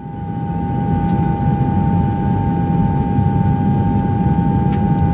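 Jet airliner in flight: a steady low engine hum with a constant whine over it, fading in at the start.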